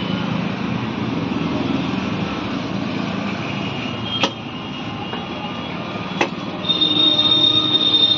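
Two sharp clicks about two seconds apart as the plastic front bumper of a Tata Altroz is pulled loose from its fender-side mounting clips, then a steady high-pitched squeal starts near the end.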